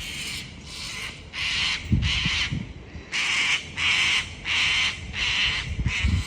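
A bird giving a long run of harsh, rasping calls, about two a second with a short break about three seconds in. There are a couple of low thumps near the microphone.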